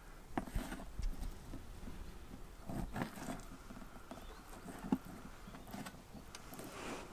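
Kitchen knife cutting raw duck breast into chunks on a plastic case used as a cutting board: a few soft taps as the blade goes through the meat and meets the plastic.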